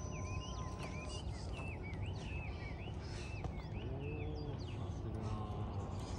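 Small birds chirping over and over, short wavy up-and-down chirps, over a steady low outdoor rumble.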